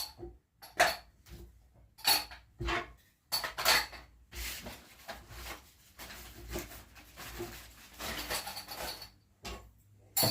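Small hard objects from a mineral hardness-test kit (steel knife, iron spanner, glass, quartz, brass key, ceramic piece) clinking and knocking together as they are packed into a bag. The knocks come at irregular intervals, with rustling between them.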